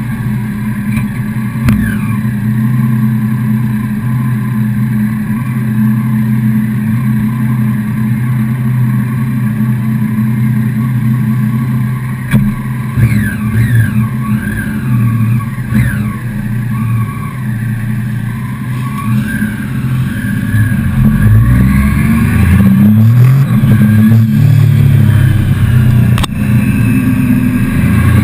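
Motorcycle engine idling steadily while other motorcycles rev and ride off past it around the middle. About twenty seconds in it pulls away and accelerates, its pitch climbing and stepping up through gear changes.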